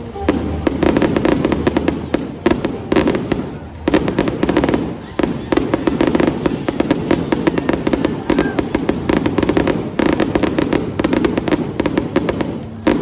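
Fireworks going off in a dense, rapid barrage of bangs and crackles, with a brief lull about four seconds in.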